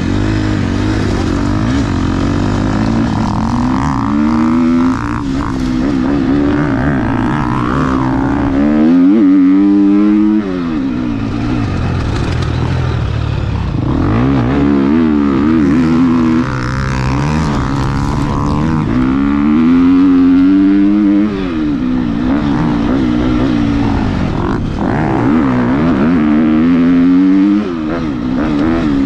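2022 KTM 250 XC-F four-stroke single with an FMF titanium silencer, being ridden hard on a dirt track: the revs climb and then drop back about every five to six seconds as the rider rolls on and off the throttle.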